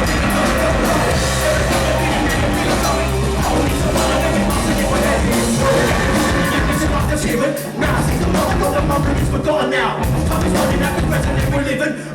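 Live band playing loudly, with heavy bass and drums. The bass drops out briefly about seven and a half seconds in.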